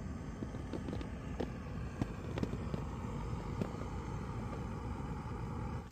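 Jetboil Flash gas stove burner running steadily, with a few light knocks over it.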